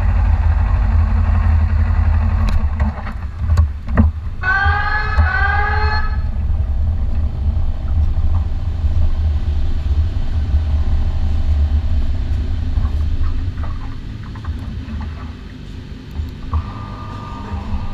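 Kawasaki Ninja 400 parallel-twin engine running at low revs as the bike rolls slowly along pit lane, its drone dropping away well into the second half as the bike pulls into the garage.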